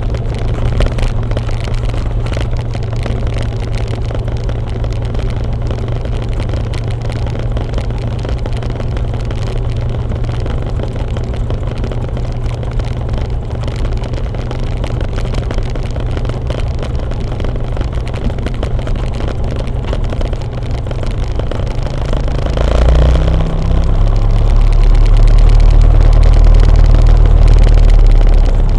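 Cessna 172's piston engine and propeller running at taxi idle, a steady low drone heard from the cabin. Near the end the engine speeds up and grows louder as power is added.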